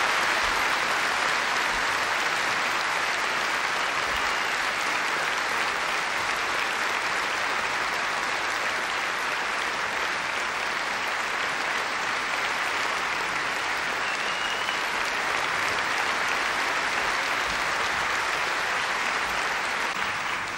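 Audience applauding, long and steady.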